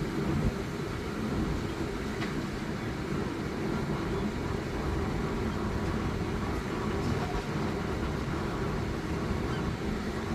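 Steady low rumble of outdoor background noise, with a few faint brief ticks.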